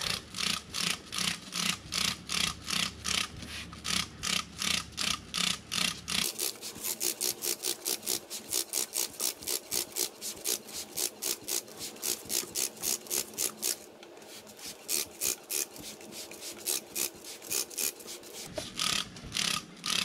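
Hand trigger spray bottle squirting plain water onto a motorcycle drive chain to rinse it, a steady run of quick squirts at about three a second. The squirts are a little softer in the last few seconds.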